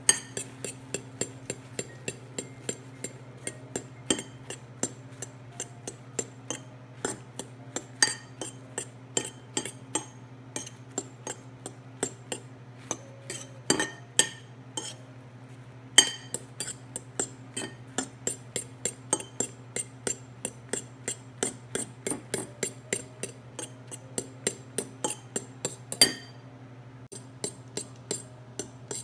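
Metal fork stirring egg yolks into beaten egg whites in a ceramic plate, clinking against the plate about three times a second, with a few harder knocks and a short pause near the end. A low steady hum sits underneath.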